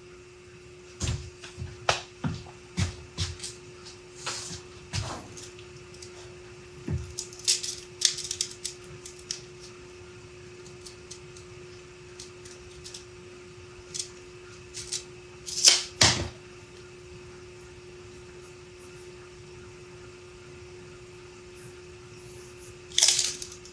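Handling of metal tools on a workbench: a lathe chuck, its loose jaws and chuck key, and a tape measure. Scattered knocks and clinks come in the first several seconds, and two sharper clicks come about two-thirds of the way through. A steady hum runs underneath throughout.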